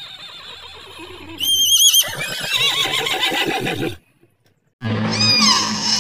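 Zebra calling: a high, wavering, whinny-like cry about one and a half seconds in, then a run of falling, yelping brays. The sound cuts off about four seconds in, and after a short silence a new high, falling call starts over a low steady hum near the end.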